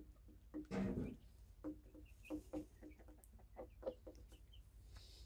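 A small flock of hens clucking softly as they forage: a scatter of short clucks, with one louder, longer call about a second in.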